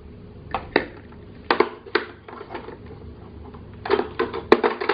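Hard plastic clacks and knocks as toy grocery items are set into a plastic rack and a toy cash register's handheld scanner is handled, ending with a quick run of clicks about four seconds in.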